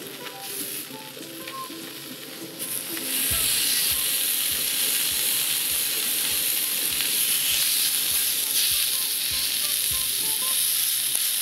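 Beef slices sizzling on a hot cast-iron griddle. The sizzle jumps much louder about three seconds in, as the meat goes down onto the pan, and stays steady after that.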